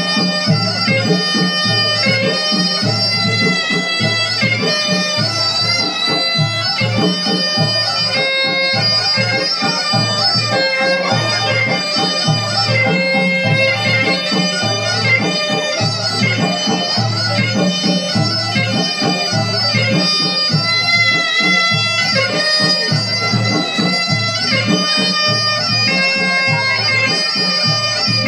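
Traditional music: a shrill reed wind instrument plays a continuous, ornamented melody over a steady drum beat.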